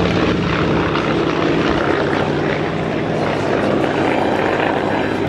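Piston engines of a pair of propeller-driven warbirds flying past in close formation, a loud, steady drone.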